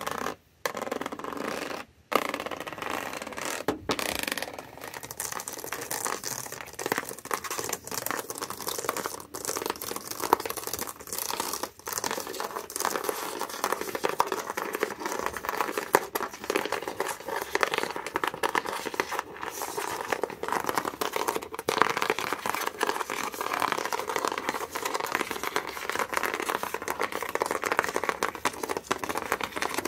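Rapid ASMR scratching with the backs of fingernails across a surface: a dense, crackly rustle with short pauses in the first few seconds.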